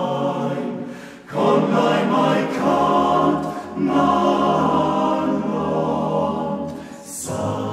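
Male-voice choir singing a cappella in sustained, full chords. One phrase dies away about a second in and a new one begins just after; another phrase fades near the end and the next starts right away.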